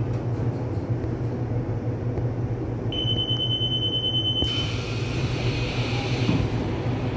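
Commuter electric train's door warning buzzer sounding once, a steady high beep of about a second and a half, then about two seconds of air hiss as the doors move, over the train's steady low rumble.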